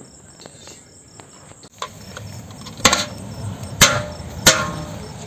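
A large aluminium strainer knocking three times against the rim of a big aluminium cooking pot as rice is tipped in, each knock with a short metallic ring. Crickets chirp in a steady pulsing rhythm underneath.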